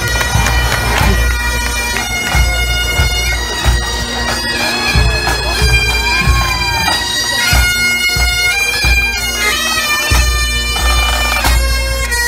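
Pipe band playing on the march: Great Highland bagpipes sounding a melody over their steady drone, with the band's drums beating underneath.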